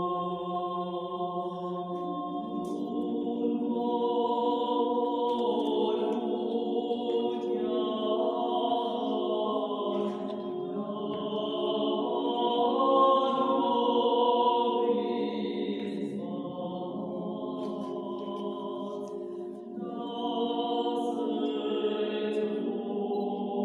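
A small group of women's voices singing a slow spiritual chant without instruments, in several parts with long, overlapping held notes. The sound dips briefly near the end before the voices come in again.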